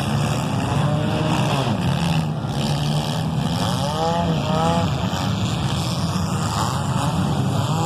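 Engines of compact demolition-derby cars running together in a steady low drone.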